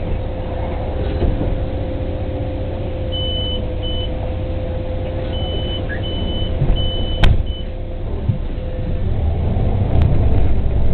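City bus standing with its engine idling, a steady low rumble and hum. A run of short high beeps from the door warning sounds, and about seven seconds in there is a sharp knock as the doors shut. The engine then picks up near the end as the bus pulls away.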